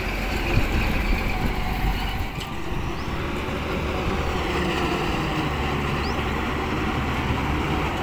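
Swaraj 8100 combine harvester's diesel engine running steadily as the machine drives off and climbs a slope.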